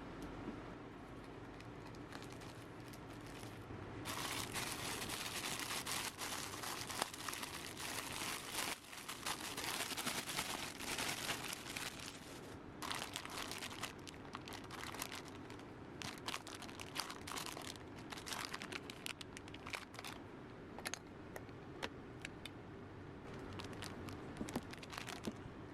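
Packaging being handled and opened, crinkling and rustling. It is quiet at first, turns to dense crinkling for several seconds, then settles into scattered crackles and clicks.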